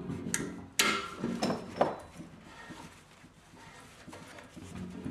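Adjustable pliers turning a brass threaded bushing out of a cast-iron radiator: sharp metal clicks and scrapes about a second in and again near two seconds, with short pitched creaks around them. The slotted bushing is coming loose easily.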